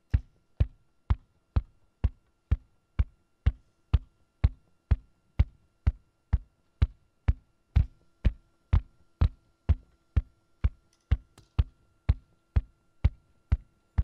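Steady percussive beat of sharp knocks, about two a second, opening a song, with a faint steady hum underneath.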